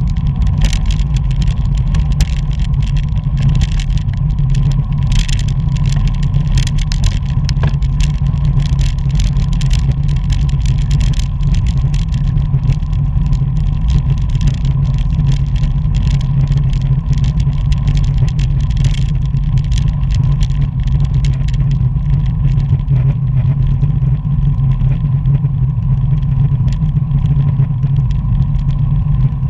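Wind buffeting the microphone of an action camera on a road bicycle at race speed: a loud, steady low rumble with tyre-on-asphalt hiss. Frequent light clicks and rattles from the bike thin out near the end.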